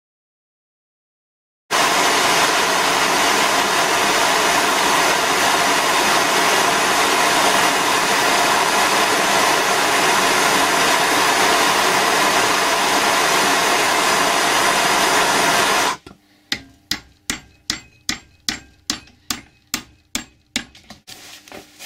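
After a brief silence, a gas torch flame hisses steadily while heating a steel pliers handle red hot, then cuts off abruptly. It is followed by a quick run of about a dozen hammer blows on the hot metal held in a vise, roughly three a second.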